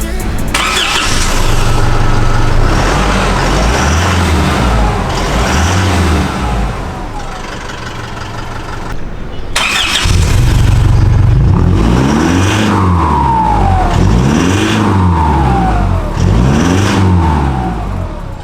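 Isuzu D-MAX's turbo-diesel engine revving through a newly fitted 3.5-inch stainless steel DPF-back exhaust. Two slower rises and falls in engine pitch come first, then a short break, then three quick rev blips, each followed by a falling whine.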